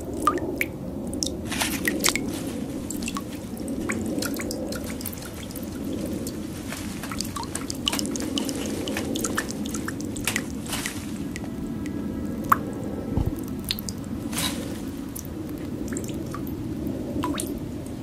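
Irregular wet drips and clicks over a steady low drone.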